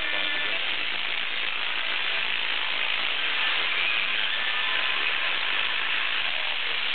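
Steady FM static hiss from a Sony XDR-F1HD tuner on 107.9 MHz, holding a weak, distant station that barely comes through. Faint speech is buried under the noise.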